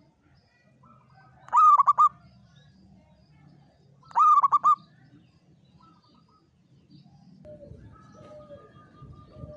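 Zebra dove (perkutut) cooing: two loud calls about two and a half seconds apart, each a quick run of four or five trilled coos lasting about half a second. Fainter, softer notes come between them, and a mix of faint calls and low background noise comes in near the end.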